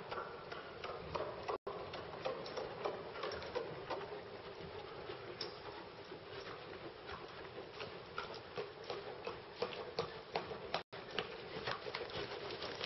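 A ridden horse's hooves striking the sand footing of an indoor arena: an irregular patter of soft beats. The audio cuts out briefly twice.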